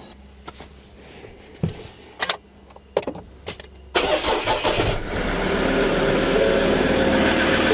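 Ford Ranger started: a few sharp clicks and knocks, then about four seconds in the starter cranks briefly and the engine catches and settles into a steady idle.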